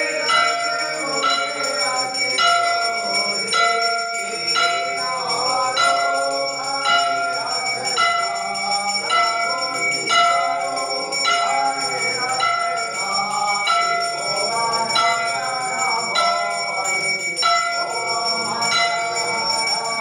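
Temple bell rung for aarti, struck in a steady even rhythm about three strikes every two seconds, each strike ringing on. Voices sing the aarti underneath.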